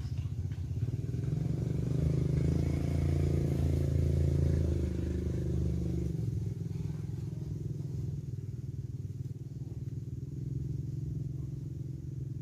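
A motor running steadily with a low, dense hum, louder for a few seconds about two seconds in.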